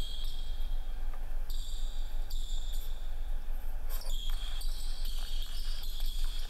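A basketball dribbled on a hardwood gym floor, bouncing repeatedly, over a steady low hum and a high-pitched whine.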